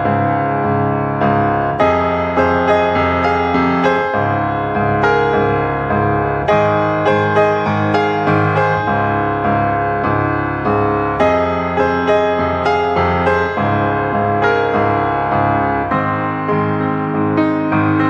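Background piano music, a melody of notes struck one after another at a steady pace.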